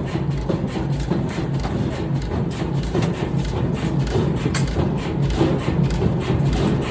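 Pneumatic forging hammer pounding hot steel in rapid, evenly spaced thuds, with a sharper clank on each blow.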